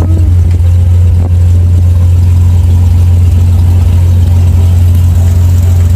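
Cessna 182 floatplane's piston engine and propeller running steadily as it taxis on the water, heard inside the cabin as a loud, even drone.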